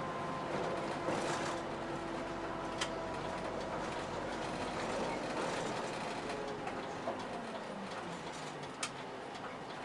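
Route bus driving, heard from inside at the front: the engine and road noise run steadily under a few faint whining tones. Two sharp clicks or rattles from the cabin come about three seconds in and near the end.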